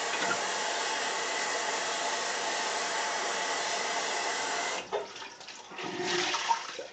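Hot water running steadily from a bathroom tap to wet a shaving towel, shut off suddenly about five seconds in, followed by a few splashes and drips.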